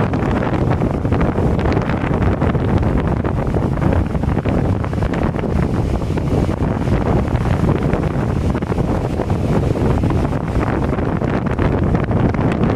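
Ocean surf breaking and washing up the sand, with wind buffeting the microphone as a steady low rumble that sits over it throughout.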